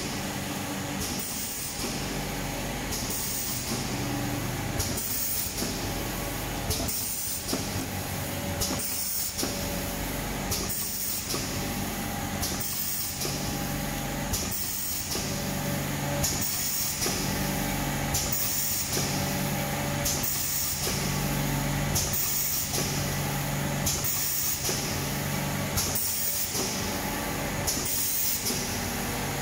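Small vertical form-fill-seal powder packing machine running continuously, with a steady motor hum. About every two seconds the air-cylinder film-pull clamp and sealing jaws cycle, each time with a burst of compressed-air hiss.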